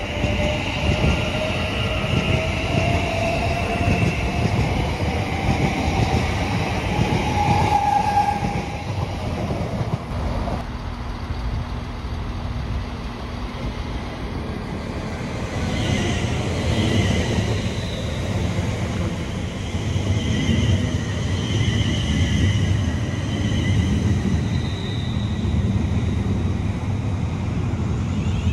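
A train running through a station with a continuous rumble of wheels on track, and a whine that rises in pitch over the first eight seconds. Past the middle, several higher whistling tones come and go over the rumble.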